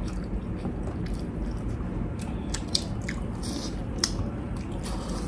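Close-up eating sounds: biting and chewing fried chicken coated in garlic mushroom sauce, with scattered wet mouth clicks over a steady low background hum.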